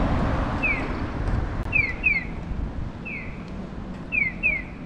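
Japanese audible pedestrian crossing signal chirping: short, identical falling 'piyo' chirps about once a second, alternating a single chirp with a quick pair, over wind noise on the microphone and a low street rumble.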